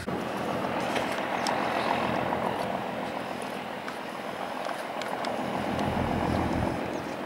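Steady, distant engine drone of a floating grab crane working on the river.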